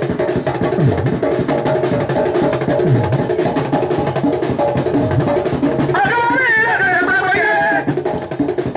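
Live Aloukou music: a dense drum and percussion rhythm under a sustained instrumental line, with a high wavering melody coming in about six seconds in.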